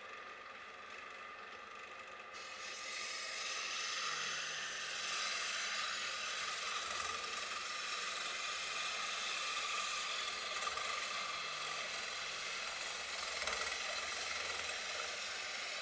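Wood lathe running with a thin parting tool cutting into the spinning turned box, a steady hissing scrape over a faint motor whine, louder from about three seconds in. It is the parting cut that frees the box from the chuck.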